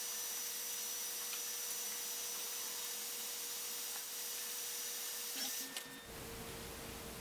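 Creality CV-01 Pro compact laser engraver running an engraving job: a steady machine hiss with a faint high whine. A few light clicks come about five and a half seconds in, after which the machine hiss drops away.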